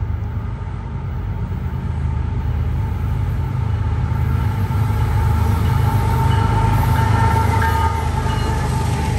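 Diesel freight locomotives of a BNSF manifest train approaching and passing. The low engine drone grows louder to a peak as the lead units go by about seven seconds in, with a steady high whine over it.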